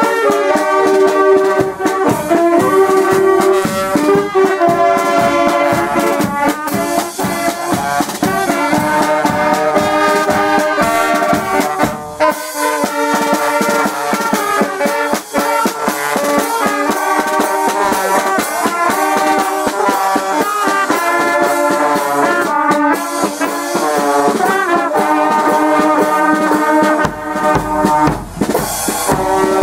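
Brass band playing a tune, with several brass instruments sounding sustained notes together.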